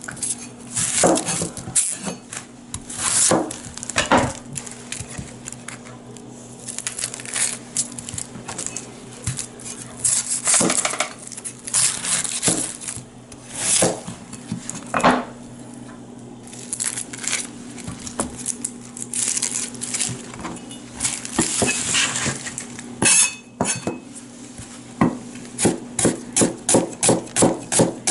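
Chinese cleaver knocking on a plastic cutting board while onions are trimmed, halved and cut, with irregular chops. Near the end it settles into a quick, even run of slicing chops, about two and a half a second.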